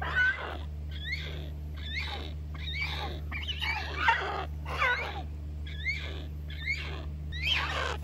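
A young rhinoceros hornbill giving short, repeated rising-and-falling begging calls, about one or two a second, as it is hand-fed. A steady low hum runs underneath.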